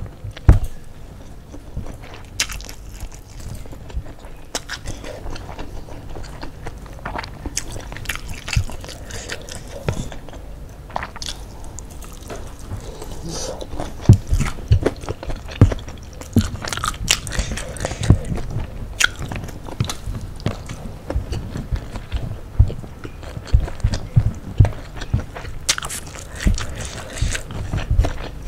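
Close-miked eating sounds: a person biting into and chewing spicy fried chicken and rice, with many short crunches and wet mouth clicks. The crunches become louder and more frequent about halfway through.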